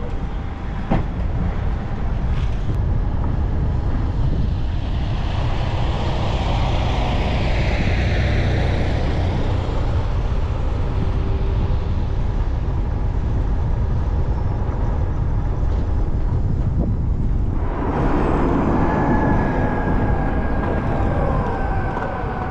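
Steady low rumble of a car driving on city streets: tyre and road noise with wind on the microphone. There is one sharp knock about a second in, and the sound turns brighter near the end.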